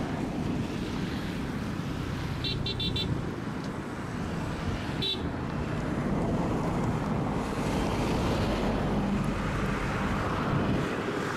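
Steady low rumble of distant engines and traffic, with a quick run of short high chirps about two and a half seconds in and a single chirp about five seconds in.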